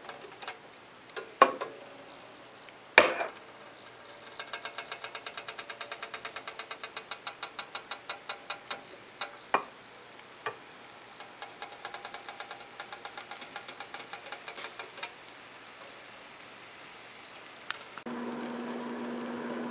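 Pancakes frying in an oiled non-stick pan with faint sizzling. Two sharp knocks come early on, then a long run of rapid, evenly spaced ticks, about five a second. A low steady hum comes in near the end.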